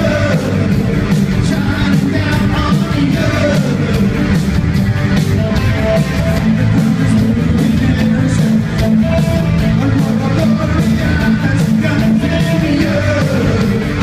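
A live rock band playing loudly: a male lead voice singing over synthesizer keyboard, electric guitar and a steady drum beat.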